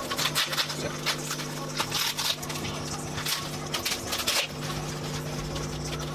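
Bubble wrap and packing tape crinkling and crackling in irregular bursts as they are pulled and torn off a small box, over a low steady hum that drops out for about a second midway.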